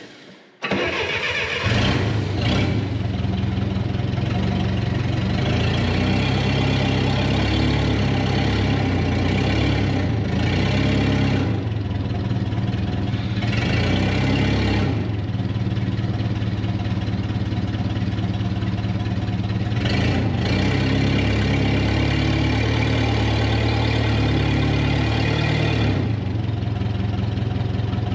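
A heavy vehicle's engine starts about half a second in and then runs steadily at low revs while the vehicle is slowly reversed.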